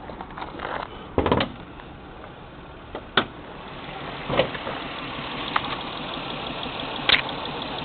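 A 1996 Nissan Maxima's V6 idling steadily, an engine that still logs misfire codes even though its coils and spark plugs are new. Several sharp knocks and clunks break in over the idle, the loudest cluster about a second in.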